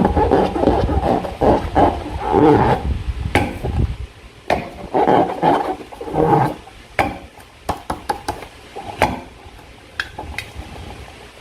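Slime being worked by hand: wet squelching for the first few seconds, then quieter stretches broken by sharp sticky clicks and pops.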